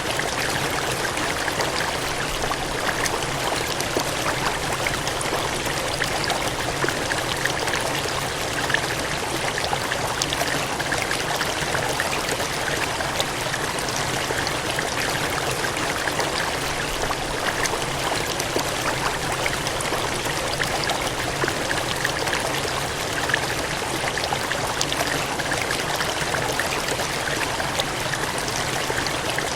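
Water gushing and splashing steadily, a continuous full rushing sound like a stream or cascade, with small splashy crackles and no change in level.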